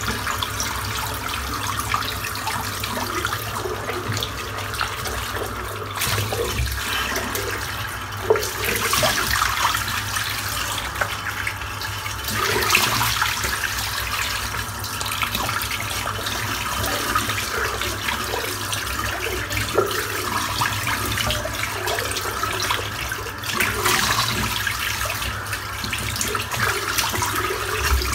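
Tap running into a bathroom sink while shaving lather is rinsed off a face, with louder splashes now and then.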